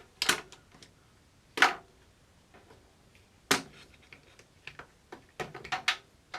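A few sharp knocks and clacks a second or two apart, then a quick cluster of them near the end: a piece of wood trim and the multi-tool being handled after a cut.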